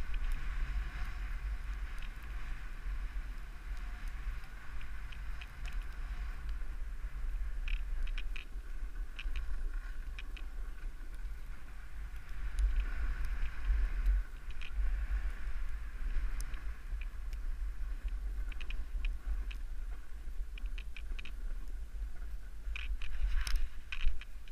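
Wind rumbling on the microphone during a fast descent over snow, with a steady hiss of sliding on snow and scattered sharp clicks and crackles, a louder cluster of them near the end.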